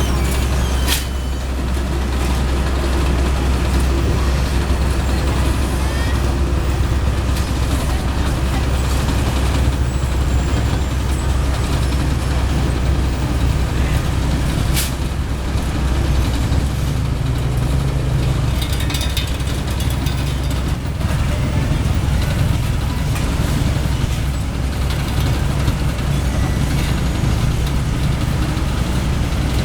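Heavy diesel engines of an asphalt paver and dump truck running steadily, with a deep, even low end and a couple of sharp clicks, one about a second in and one about halfway through.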